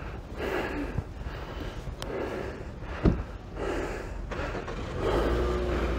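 Indistinct voices and outdoor background noise, with a sharp knock about three seconds in.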